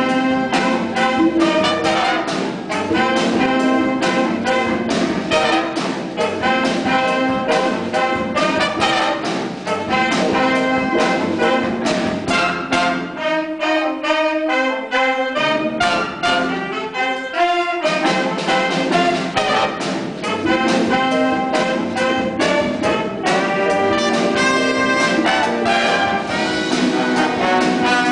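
Jazz big band playing live: trumpet, trombone and saxophone sections over electric guitar, bass and drums on a steady beat. About halfway through, the bass and drums drop out twice for a second or two while the horns carry on.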